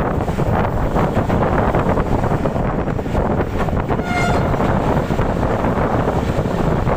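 Moving passenger train heard from an open coach doorway: steady rumble and clatter of wheels on the rails, with wind rushing past. A brief horn toot sounds about four seconds in.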